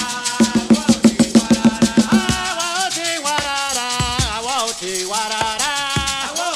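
Live Afro-Cuban chant music: a conga played by hand and a shaker rattle keep the rhythm, with a fast run of drum strokes for about the first two seconds, then voices sing the chant over the drumming.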